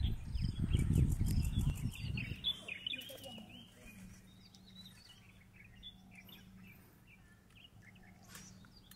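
A low rumbling noise for the first two and a half seconds, then faint, scattered chirps of small birds in the background.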